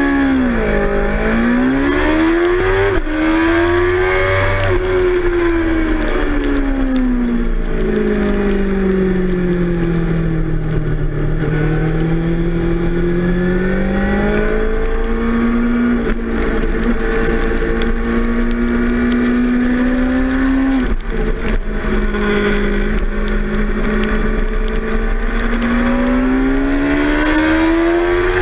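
A 2006 Suzuki GSX-R 600's inline-four engine, heard from the bike's onboard camera, accelerating hard from a race start and revving through the gears. Its note climbs and falls with gear changes and braking, with sharp drops at shifts about three seconds in and again about 21 seconds in. A steady low rumble of wind runs underneath.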